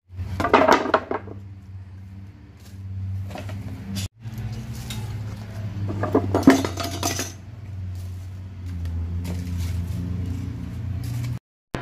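Old wooden boards and a metal hacksaw clattering as they are handled and set down on a pile of scrap wood, with two loud bursts of knocks, one about half a second in and one around six seconds, over a steady low hum.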